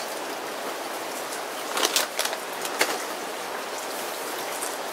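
Steady rain falling, with a few brief crinkles of a foil potato-chip bag being handled and set down about two seconds in.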